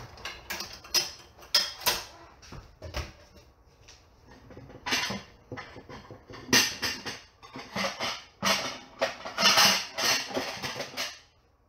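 Dishes and cutlery being handled: a run of sharp clinks and knocks, then longer clattering scrapes in the second half that stop just before the end.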